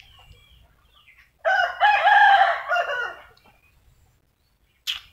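A rooster crowing once: a single wavering call of about two seconds. A short sharp squeak comes near the end.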